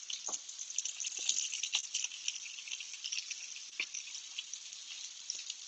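Steak sizzling in butter in a frying pan, a steady crackle with small spits. A few light clicks sound as vegetables are lifted with kitchen tongs into a ceramic bowl.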